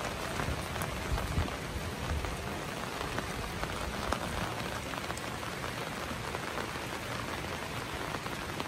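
Steady rain, a dense patter of small drop ticks.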